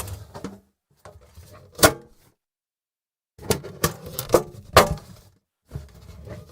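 Tinplate lunch box being handled: its metal lid opened and shut in several separate bouts, each with sharp metallic clacks and rattles. A quick run of about four clacks comes in the middle, and a sharp clack ends the last bout.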